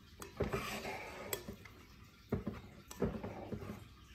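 Plastic rice paddle scooping and fluffing cooked rice in a rice cooker's non-stick inner pot, with a scraping rustle just under a second in and several light knocks of the paddle against the pot.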